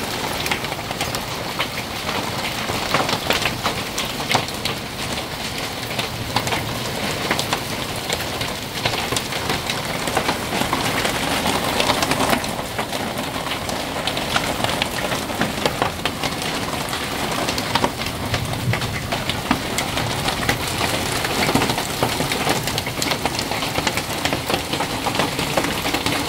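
Heavy rain pelting down on paving and puddles: a steady dense hiss dotted with many sharp hits of individual drops.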